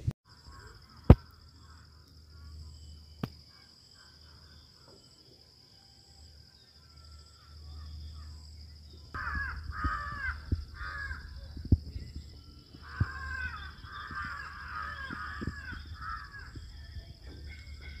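Harsh bird caws in rapid series, starting about halfway through, over a low rumble and a steady high-pitched whine. A single sharp knock about a second in.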